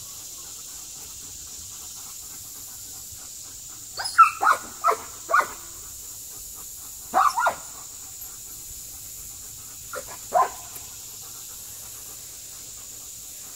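A dog barking in three short runs of two to four quick barks, a few seconds apart.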